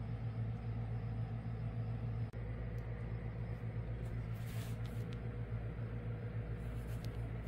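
A steady low hum runs throughout, with a few faint clicks and one brief soft rustle a little past halfway, from a sealed plastic toy package being handled.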